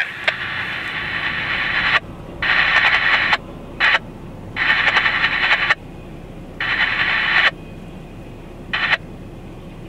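Railway scanner radio giving on-off bursts of hiss, each half a second to two seconds long, as the channel keys up with no voice. Underneath is the low steady rumble of a freight train passing the crossing.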